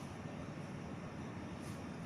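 Faint steady background hiss of room tone, with no distinct event.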